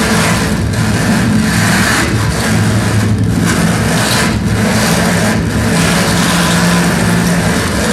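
Live harsh noise music: a loud, dense wall of distorted noise over a low droning hum, with a few brief dips in the hiss along the way.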